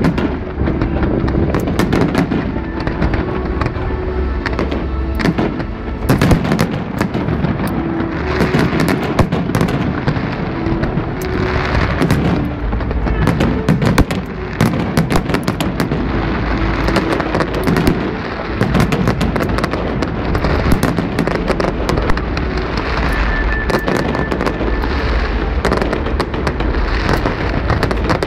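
Fireworks display: a dense, continuous run of bangs and crackling from aerial shells and rising comets, many reports a second.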